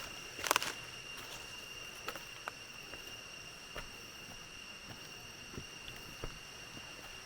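Steady high-pitched drone of tropical forest insects, with irregular footsteps on the dirt trail; the loudest steps come about half a second in.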